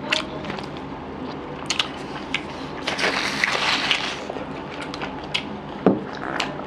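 Two people eating rice and fish curry with their hands off steel plates: wet chewing, lip smacks and fingers squishing rice, with many short irregular clicks and a denser stretch of noisy mouth sounds about three seconds in.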